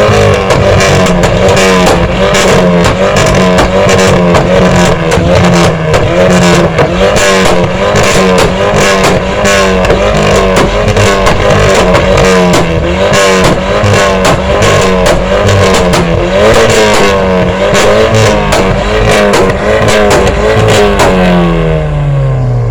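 Turbocharged VW engine running hard, its note rising and falling, with many sharp exhaust pops and crackles. The engine note drops away near the end.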